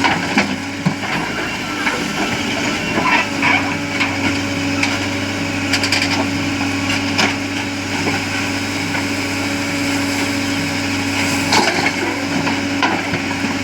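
Diesel engine of heavy machinery running steadily, with irregular knocks and clatter over it.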